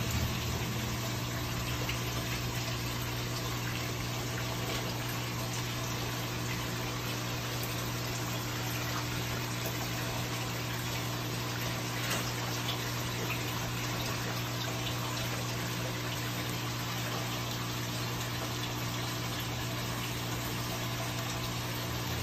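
Steady low machine hum with an even hiss over it, with a faint tick about twelve seconds in.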